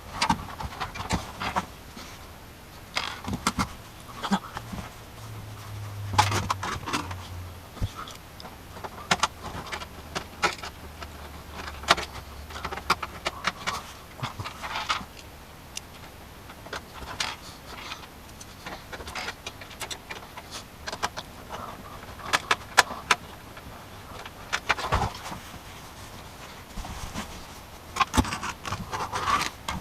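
Handling a PC power supply and computer case parts during installation: irregular clicks, knocks and light metallic rattles.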